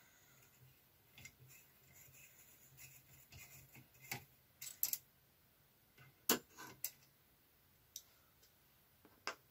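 A screwdriver loosening a small screw in the metal frame of a Singer 360 knitting machine: faint scraping, then a string of sharp, separate clicks as the driver and screw are worked.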